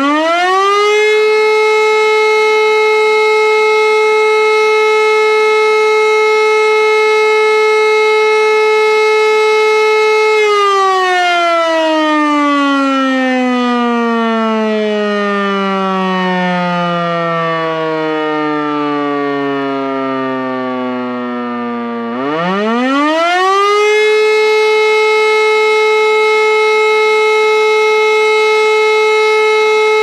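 E57 electromechanical motor siren sounding the 'Feueralarm' fire-brigade signal. It finishes winding up and holds a steady tone for about ten seconds, is switched off and winds down with falling pitch, then about 22 seconds in winds up again to the same steady tone. The signal calls out the volunteer fire brigade, and the siren runs in top condition.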